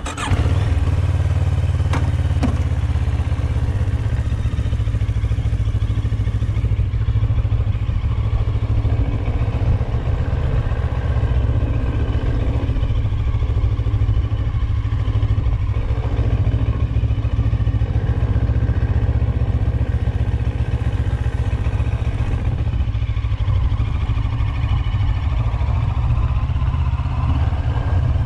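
Motorcycle engine coming on abruptly and then running steadily at low road speed, its pitch holding nearly level.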